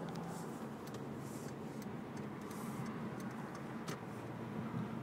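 Hyundai Sonata cabin noise while driving: a steady low hum of engine and tyres on the road, with a few faint clicks.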